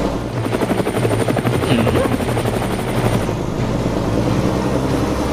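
Helicopter sound effect: a steady rotor beat over a low engine drone.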